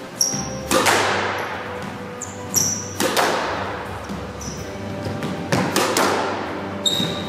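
Squash ball struck hard with a racket and smacking off the court walls, a series of sharp cracks each ringing on in the court's echo. Shoes squeak briefly on the wooden floor between shots.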